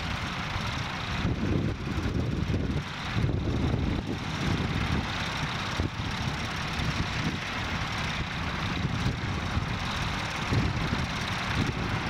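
Massey Ferguson 375 tractor's four-cylinder Perkins diesel engine running steadily under load while pulling a reversible plough.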